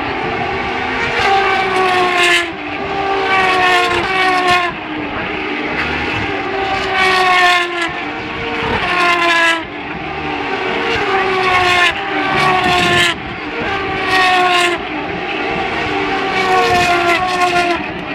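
Formula Renault 3.5 single-seater race cars passing one after another at high revs. About seven passes, each engine note dropping in pitch as the car goes by, over a steady engine drone from the rest of the field.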